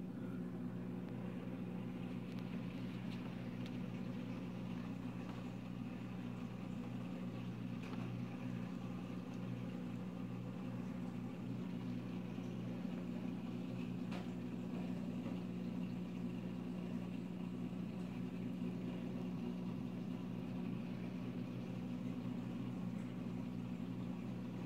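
Steady low hum of aquarium equipment running, with a single faint click about 14 seconds in.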